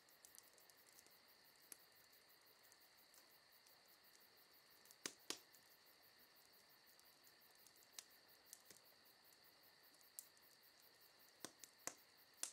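Near silence: a faint steady high-pitched hum with scattered soft clicks.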